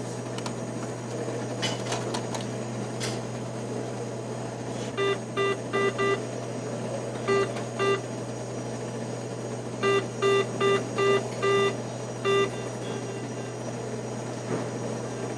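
ATM keypad beeping as keys are pressed: short, identical single-pitch beeps in quick runs of four, two, five and then one, over the machine's steady low hum. A few faint clicks come in the first few seconds.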